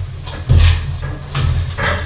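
A heavy low thump, then two shorter knocking, scraping sounds of metal work as the Kubota L3600 tractor's case halves are worked apart for clutch removal.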